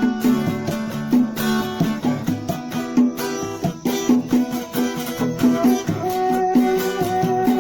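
Guitar music with no singing: plucked guitar notes in a steady rhythm.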